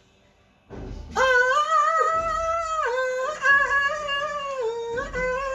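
A high-pitched voice singing long, wavering, yodel-like notes, starting about a second in and broken by a few short breaks.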